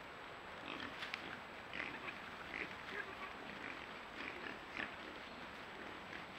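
Several wild boar grunting in short, irregular calls as a group moves through undergrowth.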